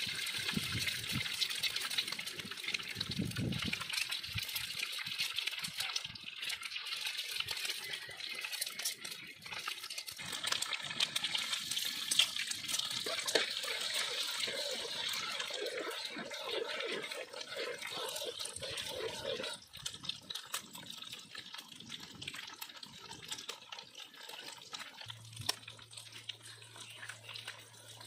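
Raw eggs sizzling and spitting in hot oil in a wide aluminium pot, a steady hiss full of small crackles as eggs are cracked in and stirred. The sizzle drops much quieter about two-thirds of the way through.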